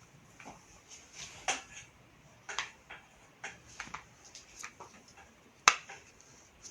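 Hair crimping iron being clamped shut on sections of hair and opened again, giving irregular small clicks and ticks, the sharpest about two-thirds of the way through.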